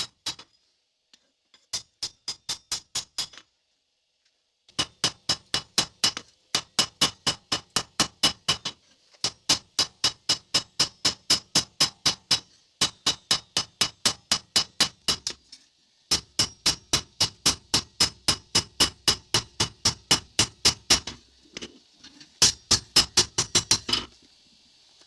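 Hammer blows on hot 5160 leaf-spring steel over an anvil, forging a knife blade. The strikes come at about four a second, each with a bright metallic ring, in runs of a few seconds broken by short pauses.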